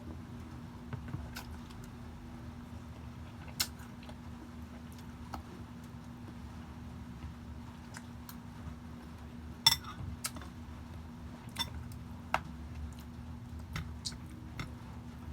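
Scattered light clinks and taps of cutlery and dishes during eating, about a dozen over the stretch, the sharpest about ten seconds in, over a steady low hum.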